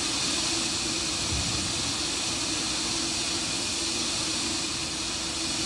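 Steady rushing hiss from a rocket on its launch pad in the last seconds of the countdown, with vapor venting from the vehicle, over a faint steady hum.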